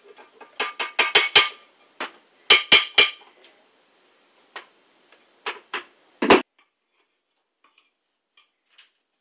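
Hard knocks and clicks against a blender jar as donut holes are tipped in from a bowl: a quick cluster over the first three seconds, a few more spaced out, and the loudest knock about six seconds in. Then only faint ticks while ice cream is scooped in.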